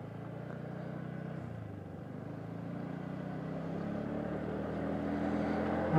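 Small motorbike engine accelerating from walking pace, its note rising steadily and growing louder as the bike picks up speed.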